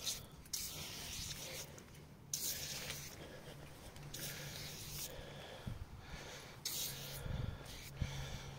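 Aerosol can of foaming cleaner hissing in repeated spurts of about a second each as it sprays onto a motorcycle.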